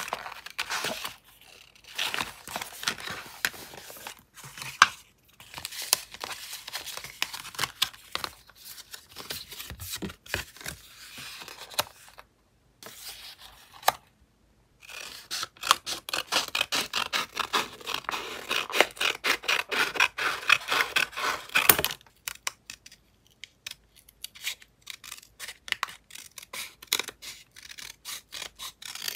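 Paper rustling and sliding as scraps of decorative paper are handled and laid down, with small scissors snipping through paper.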